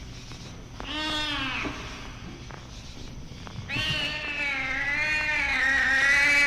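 A cat yowling twice: a short wavering call about a second in, then a longer drawn-out yowl from about four seconds in that swells louder toward the end.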